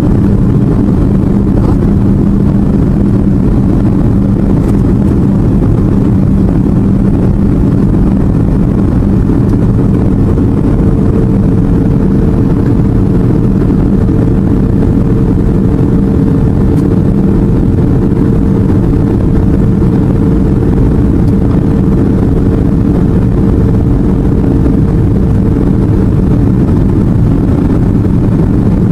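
Airliner's engines and rushing air droning steadily inside the passenger cabin, with a constant low hum. A second, higher steady tone comes in about a third of the way through and fades out near the end.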